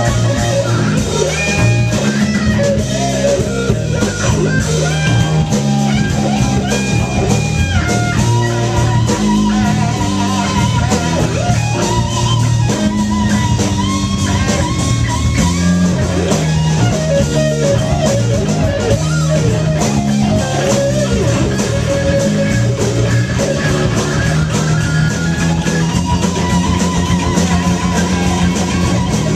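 Live blues band jamming: electric guitar soloing with bent, wavering notes over a bass guitar line.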